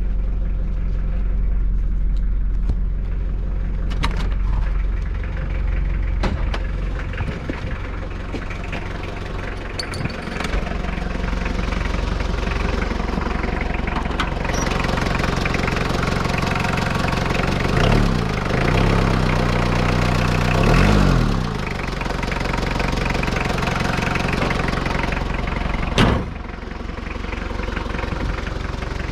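Freshly overhauled Mitsubishi L200 diesel engine running steadily, revved up and back down twice about two-thirds of the way through. A sharp click comes near the end.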